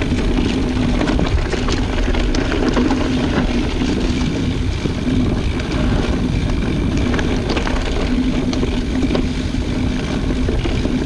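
Mountain bike descending a dirt trail covered in dry leaves: tyres rolling and crackling through the leaves, with scattered small clicks and rattles from the bike. Heavy wind rush on the microphone and a steady low hum run underneath.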